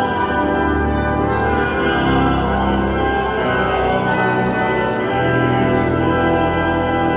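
Walcker pipe organ playing full sustained chords, with a new chord about every second and a half.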